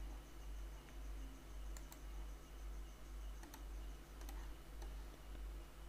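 A handful of sparse computer mouse clicks, a few in quick pairs, over a low steady hum.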